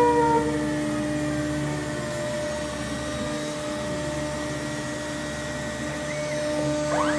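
Multicam MG204 CNC router running, its 5-horsepower Colombo spindle and servo-driven gantry moving the head over the table: a steady motor hum and whine with several steady tones. A whine falls in pitch just at the start, and another rises sharply near the end.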